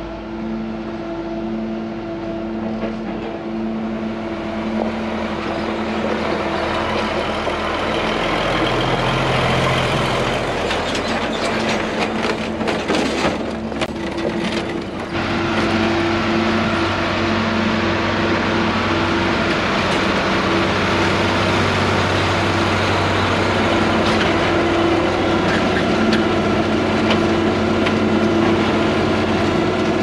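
Farm machinery running steadily under an engine's steady hum, with a louder, rattling noisy stretch around the middle, after which the engine note settles lower and fuller.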